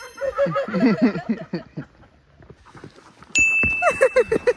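Edited-in sound effects: a quick run of wavering, whinny-like pitched calls lasting about a second, then a second run near the end laid over a steady high beep-like tone.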